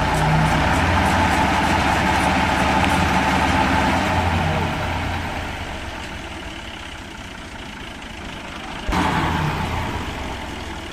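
New Holland tractor's diesel engine running steadily while driving a tubewell pump. It is loud for the first four seconds or so, then grows fainter, and jumps suddenly louder again about nine seconds in.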